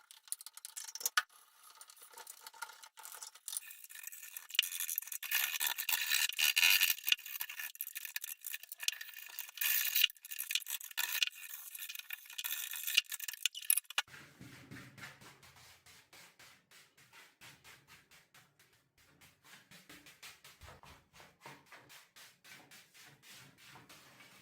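Chisel scraping and picking hardened, dried mud out of an air-cooled scooter engine's aluminum cooling fins, with irregular grating scrapes and clicks. About halfway through it gives way to a quieter run of light, rapid ticking.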